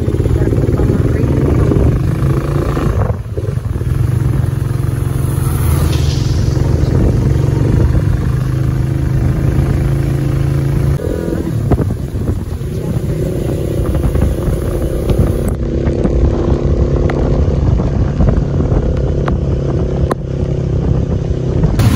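Motorcycle engine running steadily while the bike is ridden, with wind noise on the microphone. The engine note changes pitch a couple of times, about halfway through and again a few seconds later.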